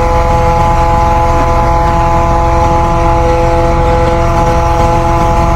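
Truck engine running steadily as it drives the truck-mounted crane, with a constant whine over a deep rumble.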